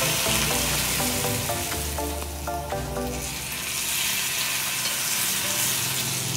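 Hot oil poured over chopped chillies and garlic for sambal, sizzling hard as it hits and is stirred in with a spoon. The sizzle eases a little about three seconds in, then comes back strong. Background music plays underneath.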